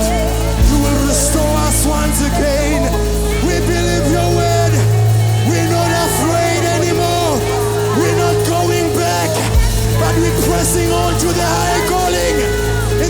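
Live gospel worship band playing: held keyboard chords over bass and drums, with cymbals and moving melody lines. Two louder low thumps, one just under a second in and one about two-thirds of the way through.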